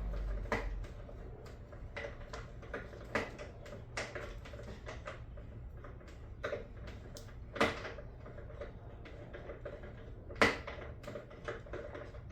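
Irregular light metal clicks and taps of hand tools working a stubborn bolt loose on a lawnmower, with a few sharper knocks among them.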